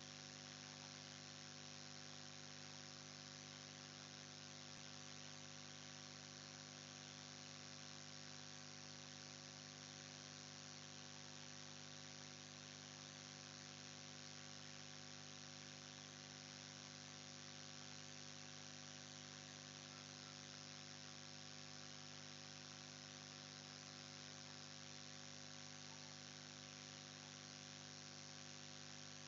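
Near silence: a faint, steady electrical hum with hiss that never changes.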